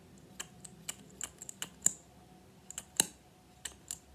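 Sticky clicks and pops of a lip gloss wand applicator dabbed and drawn across the lips, irregular and sharp, with the loudest clicks about two and three seconds in.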